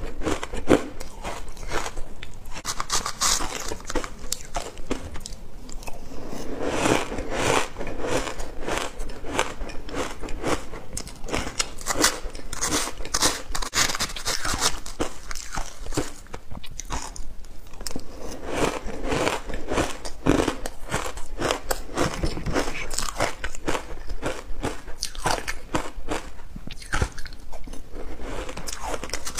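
A person chewing mouthfuls of shaved ice, with a continuous run of crisp crunches as the ice is bitten and ground between the teeth.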